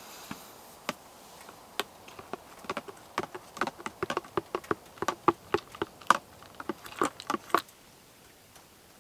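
A spoon clinking against a mug while stirring hot chocolate: a few scattered taps, then quick clinks about four a second for several seconds, stopping shortly before the end.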